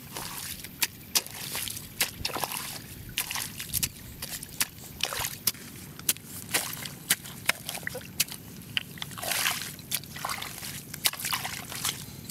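Spade chopping into waterlogged mud, with muddy water sloshing and splashing; sharp, irregular strikes about one or two a second.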